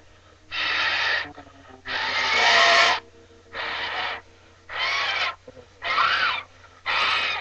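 A latex condom being blown up like a balloon: six puffs of breath blown into it, each half a second to a second long, with short pauses for breath between. A few puffs carry a thin wavering squeal.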